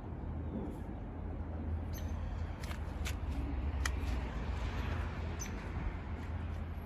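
Steady low outdoor rumble with a faint hiss, and a few brief, faint clicks scattered through it.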